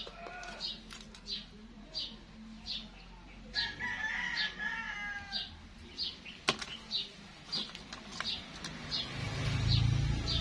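Birds calling: a short high chirp repeated about every two-thirds of a second, and a longer pitched call of about two seconds partway through. A sharp click comes about six and a half seconds in, and a low rumble swells near the end.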